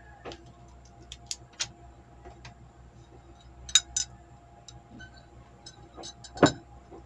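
Quiet desk sounds: scattered light clicks of a ballpoint pen on notebook paper, a pair of sharper clicks about four seconds in as the pen is set down on the open notebook, and a louder knock near the end as a glass of tea is handled.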